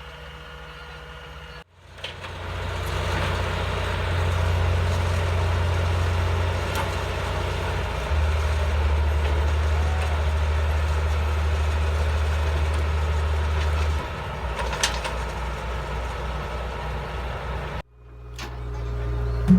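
Heavy diesel machinery engine running steadily in a flooded paddy field, its level stepping up and down a few times. The sound drops out abruptly twice, about two seconds in and near the end.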